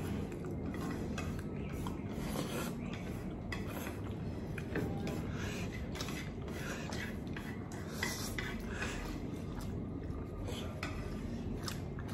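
Utensils stirring noodles in a dish, with repeated light clicks and scrapes against it.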